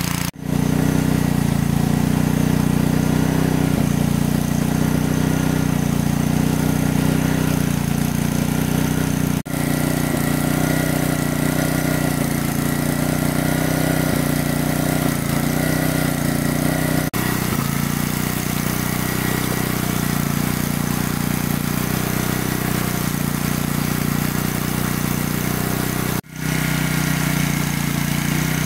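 Engine of a large water pump running steadily at constant speed, a low even drone, with three brief sudden dropouts.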